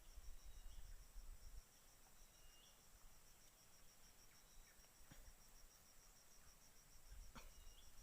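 Faint, steady, high-pitched insect chirring that pulses evenly several times a second, with two soft clicks about five and seven seconds in.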